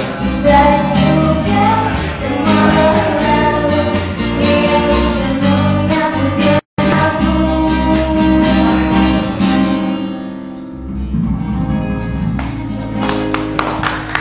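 Live acoustic band: a woman singing over strummed acoustic guitar. The singing stops about ten seconds in and the guitar plays on to close the song.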